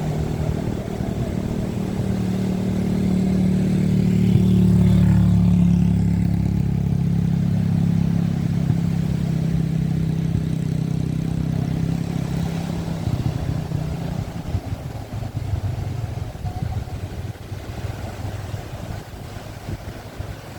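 A motor engine running steadily, loudest about five seconds in, then fading away over the next ten seconds.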